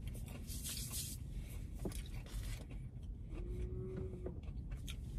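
Quiet car cabin with a low background rumble, faint rustles and small clicks, and a short steady hum lasting about a second, a little past the middle.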